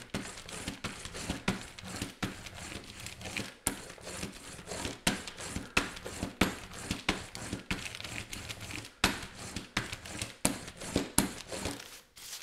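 Rubber brayer roller rolled back and forth over a plastic sheet laid on image transfer paper, the plastic crinkling with irregular sharp clicks and crackles. This presses the transfer paper down into the acrylic gel medium for full contact.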